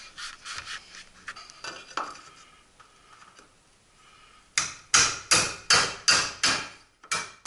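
Hammer driving a steel nail plate onto a wooden stud: a steady run of about eight sharp blows, a little under three a second, starting just past halfway. Before the hammering, light rustling and clicks as PVC pipe is handled against the framing.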